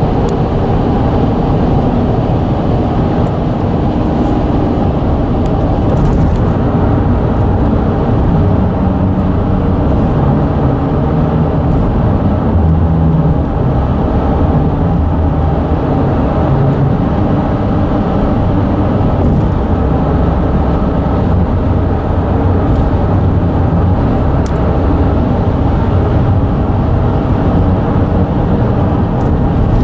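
Steady low rumble and hum of a road bridge vibrating under traffic, with vehicle tyres running across the bridge deck.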